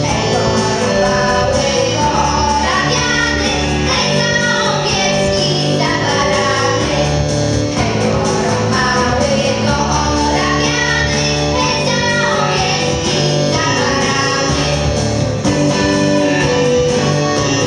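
Polish folk song: several voices singing together over an instrumental accompaniment with a steady, recurring bass line.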